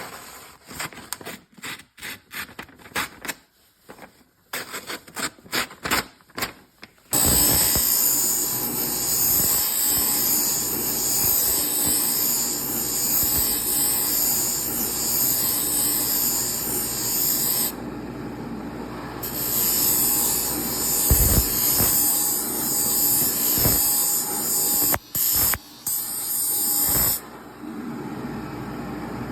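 Micron 2 knife sharpening machine: a run of irregular clicks and knocks, then from about seven seconds in a steady, high hiss of abrasive grinding against a blade. The hiss drops away briefly twice and resumes.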